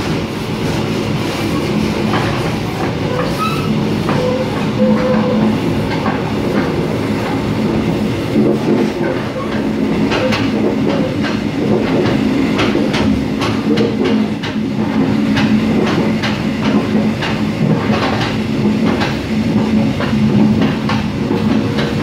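Mugunghwa-ho passenger train running at speed, heard from inside the coach: a steady rumble of wheels on rail, with clicks of the wheels over rail joints through the middle part.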